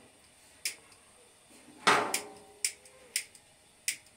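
Sharp metallic clicks from the domed metal bread griddle (saj) and its gas-burner stand being handled, with one louder clank about two seconds in that rings briefly.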